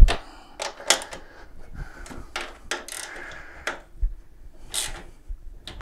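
Metal clinks and knocks of a wrench and hands working on a mobility scooter's front wheel and fork: a sharp knock at the start, then a string of scattered clicks.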